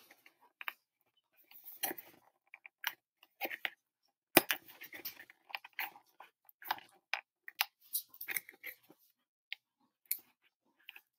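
Cardboard model-rocket body tube and engine mount being handled and pushed together: irregular small scrapes, crackles and clicks, with one sharper click about four and a half seconds in.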